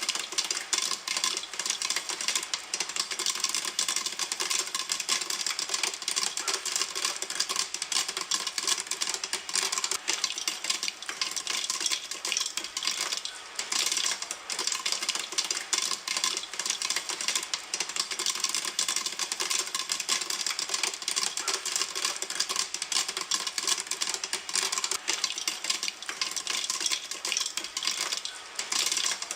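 Popcorn kernels popping in a pan: a dense, steady run of many overlapping pops and crackles.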